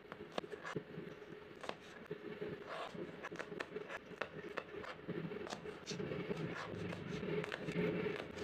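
Kitchen knife slicing small chili peppers into rings on a plastic cutting board: quick, irregular taps as the blade cuts through and knocks the board. A low drone sits underneath, growing stronger about halfway through.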